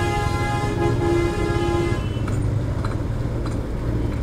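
A vehicle horn sounds once, held for about two seconds, over the steady low rumble of a motorcycle engine and street traffic.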